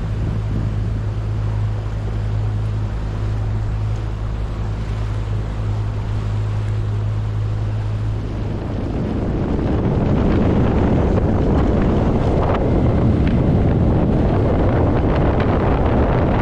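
Boat motor running with a steady low hum, then about nine seconds in a louder rush of wind buffeting the microphone and water noise takes over as the boat gets under way.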